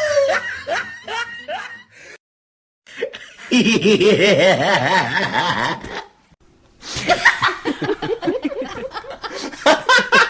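Laughing sound effects played one after another. One laugh trails off in the first two seconds, and after a brief silence a second bout of laughter starts. After another short gap a third bout starts and carries on to the end.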